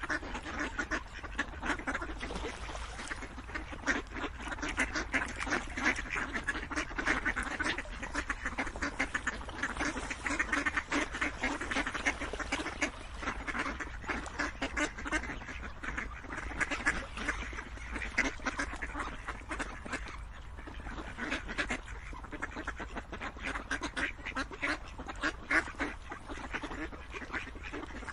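A flock of ducks quacking continuously, many short calls overlapping into a dense, unbroken chatter.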